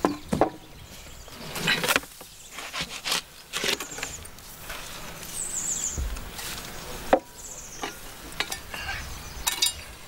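Irregular knocks, scrapes and clatters of a wooden bread peel and the oven doors as a loaf is slid into a brick bread oven and the doors are shut, with a few short high chirps in the middle.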